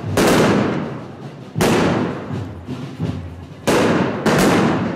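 Firecrackers going off at ground level: four loud bangs, one near the start, one after about a second and a half, and two close together near the end, each dying away in a long echoing tail.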